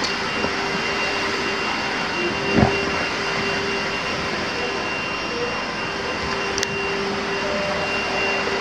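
Steady blower-like machine drone with a low hum and a faint high whine running under it, and a single short thump about two and a half seconds in.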